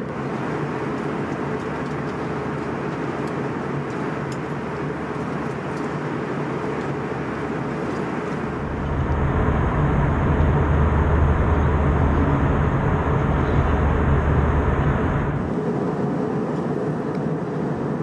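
Steady airliner cabin noise of an Airbus A321 in cruise: a constant rush of engine and airflow noise. For several seconds in the middle it grows louder, with a deeper low rumble.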